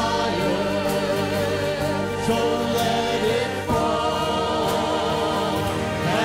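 Live worship band playing a hymn while several singers sing together, over acoustic guitar, keyboard and drums.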